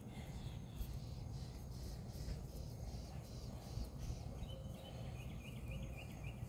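Faint backyard ambience: a low steady rumble, with a short run of quick high chirps from a small bird starting about four and a half seconds in.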